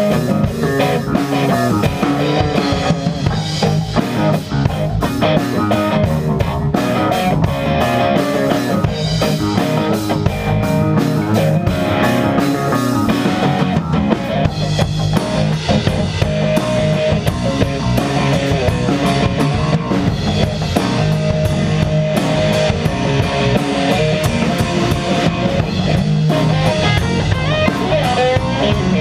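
Rock band jamming: drum kit, electric bass and electric guitar playing together. The bright cymbal and drum hits thin out about halfway through, leaving the guitar and bass more to the fore.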